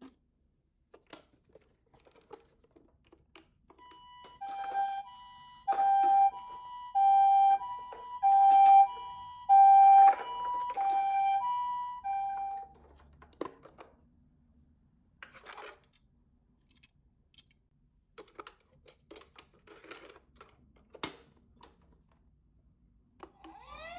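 Toy ambulance's electronic two-tone siren, the Japanese ambulance 'pee-po' alternating high and low notes about once a second for around eight seconds. Light plastic clicks and rattles come before and after it.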